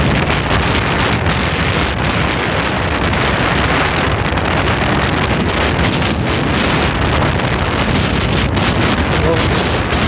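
Steady wind rushing over a helmet or handlebar action camera's microphone at riding speed, mixed with the running of a Bajaj Boxer 100cc motorcycle's single-cylinder engine.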